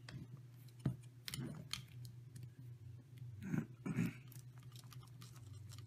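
Light clicks and taps of small screws, a nylock nut and carbon-fibre frame plates handled by hand, with one sharp click just under a second in and a few more soon after.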